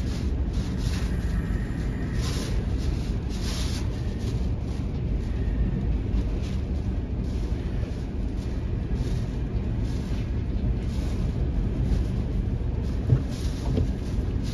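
Hurricane wind buffeting a car, heard from inside the cabin, with rain spattering the windshield: a steady low rumble with uneven gusts of hiss.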